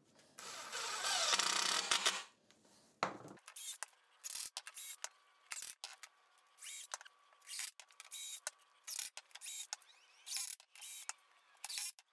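Cordless drill running under load for about two seconds as it drills a pilot hole and drives a screw through the T-track into the MDF, then a shorter burst. After that come short whirring spurts about two a second, sounding thinner.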